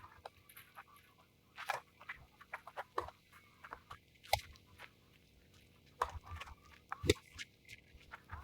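Tennis rally in singles play: a run of sharp racket-on-ball hits and ball bounces, the loudest coming about every two and a half seconds. Gusts of wind rumble on the microphone near the end.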